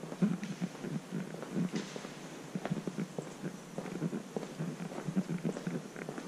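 Low ambience inside a church: scattered soft knocks and shuffles, irregular and unpitched, with no speech.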